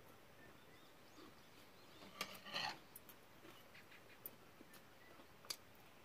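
Near silence with faint eating sounds from chewing a lettuce-wrapped mouthful of rice: a short rustle a little over two seconds in and a few faint clicks later.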